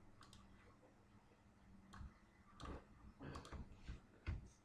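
Near silence with a handful of faint computer mouse clicks, spread out over a few seconds, over a low steady hum.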